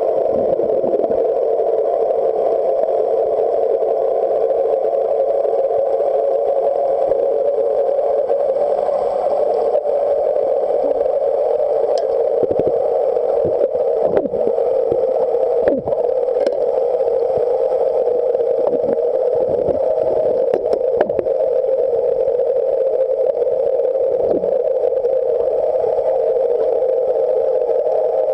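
A boat's engine and propeller running astern at about 1500 rpm, heard underwater as a steady, muffled drone, with a few short clicks or knocks around the middle. The engine is pulling back on the chain to dig a roll-bar anchor into the seabed.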